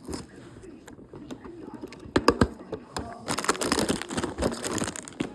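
Toy packaging being handled: a few sharp taps and clicks, then crinkling, rustling paper and plastic from about three seconds in as the contents are unpacked.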